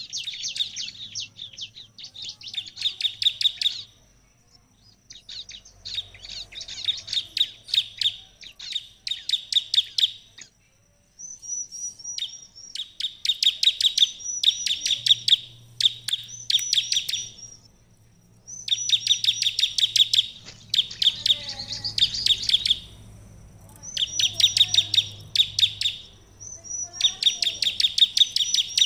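Bar-winged prinia (ciblek) singing in full voice: repeated loud phrases, each a rapid run of sharp chipping notes that builds in loudness over two to three seconds, with short pauses between phrases and a thin high tone held in the gaps.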